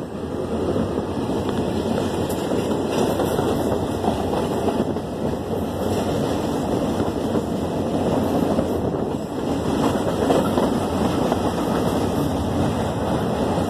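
Passenger train running at speed, heard from inside a coach at an open window: a steady rumble of wheels on the rails.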